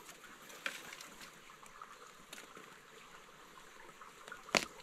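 A stream trickling faintly in the background, with a few light clicks and one sharp knock near the end.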